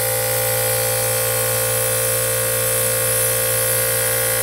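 Small electric airbrush compressor of a Revell Airbrush Basic Set buzzing steadily, with the airbrush hissing as it sprays paint.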